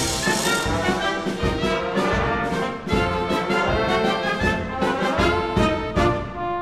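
Upbeat music with a steady beat and a brassy, horn-like melody.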